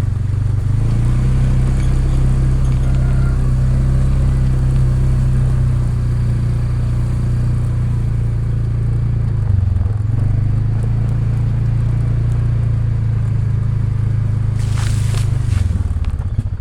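ATV engine running steadily at low speed. Its note dips briefly about ten seconds in and again near the end, and there is a short rattle shortly before the end.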